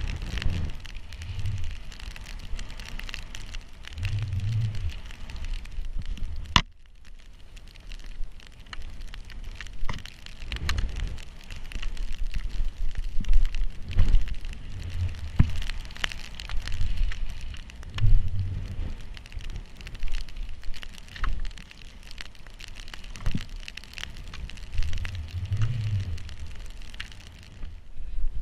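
Snowboard riding through deep powder snow: a continuous hiss and crackle of spraying snow, with wind buffeting the microphone in repeated gusts.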